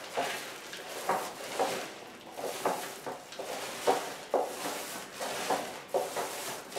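Paint roller on an extension pole being rolled up and down a wall through wet paint: a sticky, rasping rolling noise with a short accent at each turn of the stroke, about twice a second.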